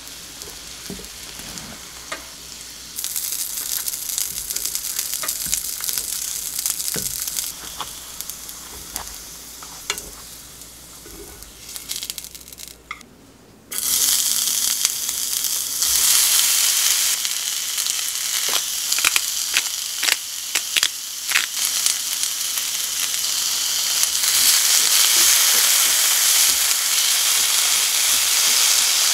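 Food frying in oil in a square omelette pan, sizzling, with chopsticks clicking against the pan. About halfway through, the sizzle suddenly gets much louder as julienned carrot and potato go into hot oil and are stirred with chopsticks.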